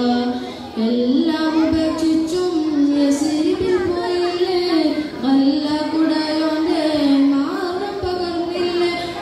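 A boy singing a madh song, a devotional song in praise of the Prophet, solo into a microphone, with long held notes that slide and ornament between pitches. He breaks briefly for breath just under a second in, then carries on.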